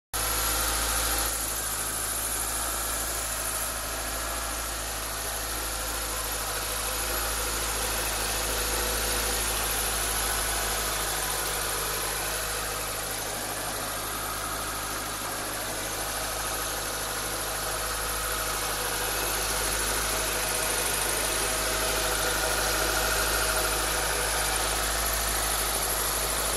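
A 2006 Mitsubishi Lancer Spirit's 1.6-litre four-cylinder engine idling steadily just after a start, with a high-pitched wavering whine over the idle. The owner suspects the noise comes from the engine's drive belt.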